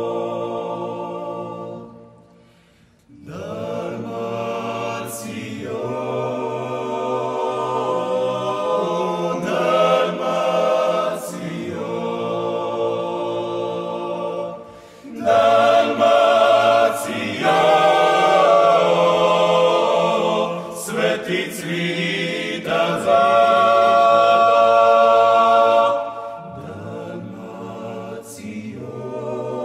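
An a cappella vocal group in the Dalmatian klapa style, singing held chords in several voice parts. It breaks off briefly about two seconds in, then swells louder through the middle.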